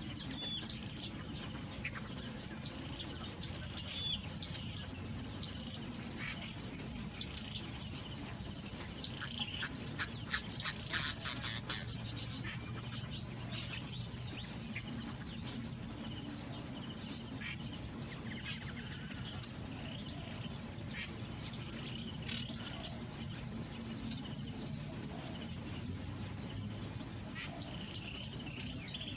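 Many small birds chirping and calling in quick, short notes, with a dense flurry of calls about a third of the way through, over a steady low hum.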